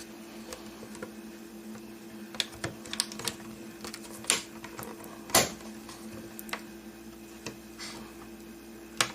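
Irregular sharp plastic clicks and taps, the loudest a little past the middle, as a tool pries at the plastic retaining tabs of a Mazda6 overhead map-light console. A steady low hum sits underneath.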